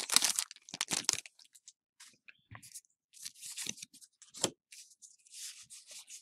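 Foil trading-card booster-pack wrapper crinkling and tearing as it is pulled open, loudest in the first second. Then quieter, scattered rustles and soft snaps of the cards being handled and fanned.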